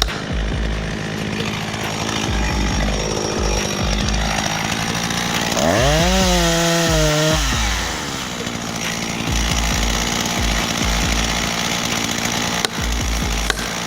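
Chainsaw engine running, revved up sharply about six seconds in, held at high speed for a second or so, then dropping back.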